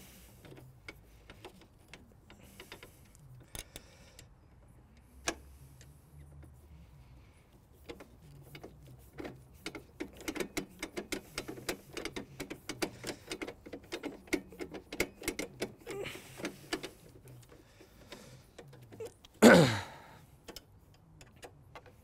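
Small metal clicks and clinks of an Allen key working the bolts of a mower's handle support bracket, scattered at first and then coming quickly for several seconds in the middle. A short, louder sound stands out near the end.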